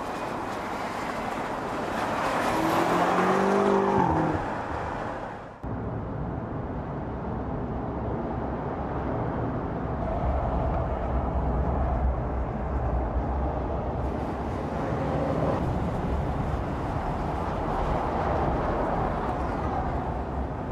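BMW M5 Competition's twin-turbo V8 at speed, getting louder, then falling in pitch between three and five seconds in. After an abrupt cut, steady engine and road noise at speed follows.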